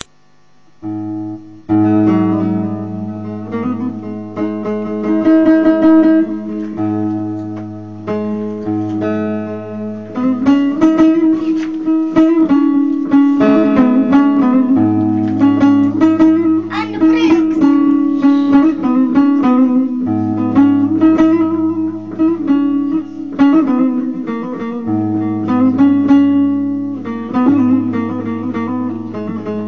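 Bağlama (saz, a long-necked Turkish lute) playing the instrumental introduction of a Turkish folk song (türkü): a quick plucked melody over steady low droning tones, starting about a second in.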